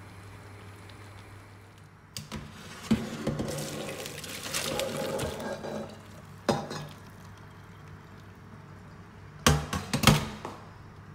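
Boiled spinach and its hot cooking water poured from a steel pot into a metal colander in a stainless-steel sink, splashing for a few seconds. A single knock follows, then a few loud clanks of the metal pot near the end, over a low steady hum.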